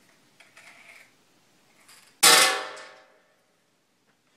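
A small glass cup clinks once, sharply, and rings out, fading over about a second. It is preceded by a few faint clicks of glass and BBs being handled.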